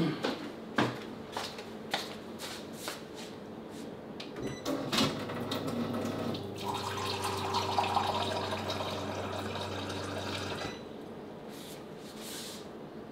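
Water running from a kitchen tap, with a steady low hum under it for about six seconds before both stop abruptly. A few sharp clicks and knocks of handling come before it.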